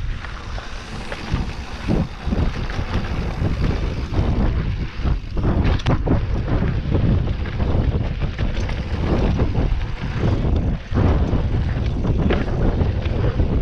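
Wind buffeting the microphone of a mountain bike's handlebar or body camera while riding dirt singletrack, over a steady low rumble of knobby tyres, with frequent knocks and rattles from the bike jolting over bumps.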